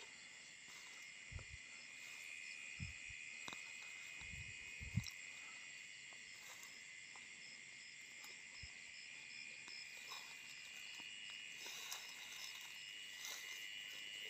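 Faint, steady high-pitched chorus of night insects such as crickets, with a quicker pulsing chirp running through it. A few soft low thumps come in the first few seconds, the loudest about five seconds in.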